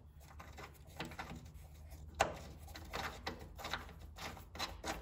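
Faint clicking and rubbing of a steel bolt being turned in by hand, its threads running into a freshly tapped hole in a car's frame, with one sharper click about two seconds in.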